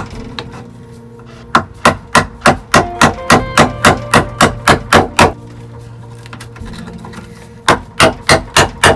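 A chisel being struck over and over to chop a hole in wood: sharp, regular blows about three a second. They come in two runs, with a pause of a couple of seconds in between.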